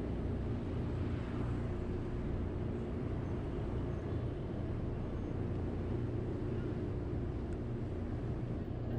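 Steady road traffic noise from passing cars and vans, a low, even rumble with no single event standing out.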